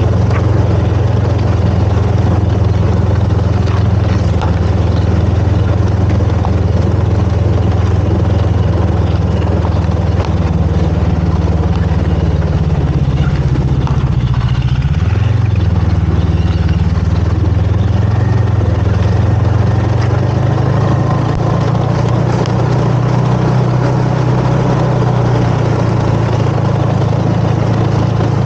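Snowmobile engine running steadily, with a brief dip and recovery in its pitch about halfway through.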